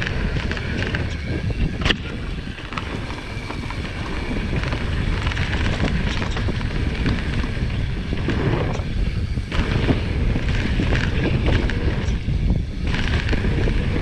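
Wind rushing over the microphone with rattling and tyre noise from a Marin Alpine Trail XR mountain bike riding a dirt trail, and a sharp knock about two seconds in.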